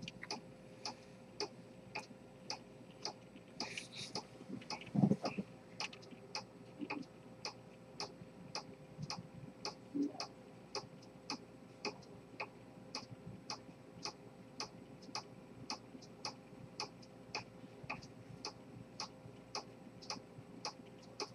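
Pocket chronometer with an Earnshaw-type spring-detent escapement ticking rapidly and evenly, heard close up. A single dull thump about five seconds in.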